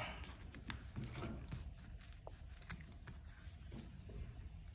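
Faint, irregular light clicks and taps of handling, over a low steady hum.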